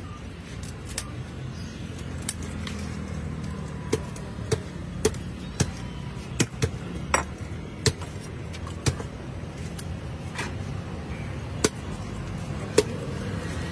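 Heavy knife chopping into a large catla fish's head on a wooden stump block: about a dozen sharp knocks at uneven intervals, over a steady low background rumble.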